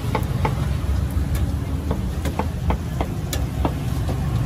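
Street noise: a steady low rumble of vehicle traffic, with about a dozen sharp clicks and knocks at uneven intervals.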